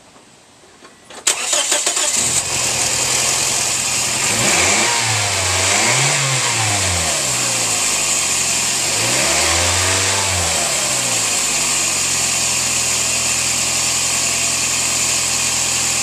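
2006 Scion xA's 1.5-litre four-cylinder engine cranking briefly and starting about a second in, then revved up and back down twice and settling to a steady idle. It is running after its misfire repair, which the owner calls all fixed.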